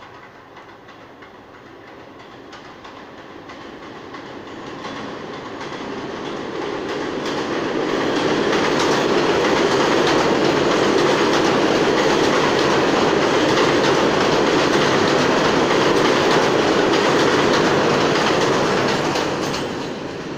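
New York City subway train running through an elevated station without stopping: a rumble with wheel clatter on the steel track that builds for about eight seconds as it approaches, holds loud while the cars pass, and begins to fade near the end.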